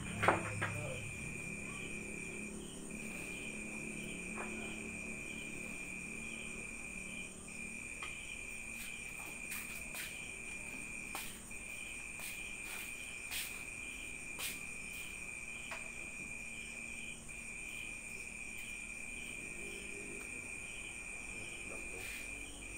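An insect trills steadily on one high pitch, breaking off for a moment every four or five seconds. Faint clicks of billiard balls come and go, with a sharper knock just after the start as the nine-ball rack is set.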